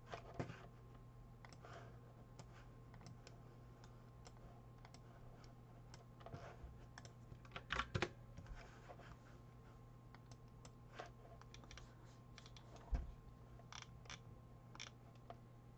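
Faint, irregular clicks and taps of a computer keyboard and mouse, a few of them louder, over a steady low hum.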